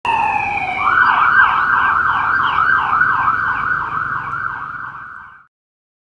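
Police car siren: a falling wail that switches about a second in to a fast yelp, warbling up and down about three times a second. It fades gradually and then cuts off abruptly.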